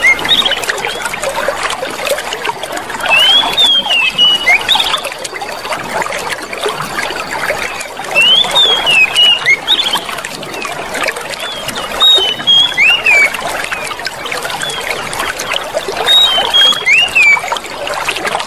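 Clear running water trickling and babbling steadily. A bird sings a short phrase of rising-and-falling chirps about every four seconds over it.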